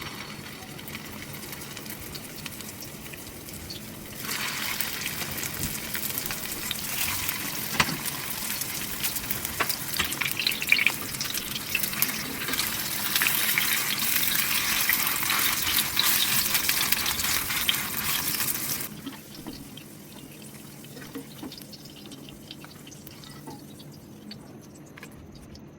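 Food sizzling in hot oil in a pan, a dense hiss with crackles. It starts suddenly about four seconds in and dies down to a soft hiss near the three-quarter mark.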